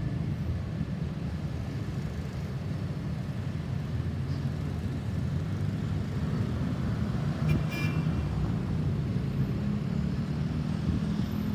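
Road traffic: a steady low engine rumble from passing or idling vehicles, with one short high-pitched toot about seven and a half seconds in.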